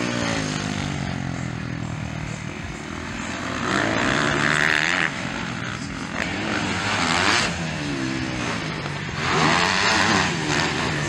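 Motocross bike engines revving up and down as they ride the dirt track, the pitch rising and falling with throttle and gear changes, with three louder bursts of hard throttle about four, six and a half and nine and a half seconds in.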